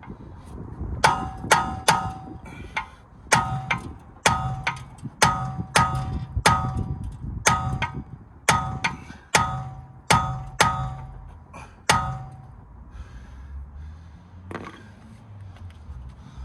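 Repeated hammer blows on the rear driveshaft of a BMW E92, about twenty strikes at roughly two a second, each with a short metallic ring, stopping about 12 seconds in with one lighter knock later. The driveshaft is being knocked out of the wheel hub and is stuck fast.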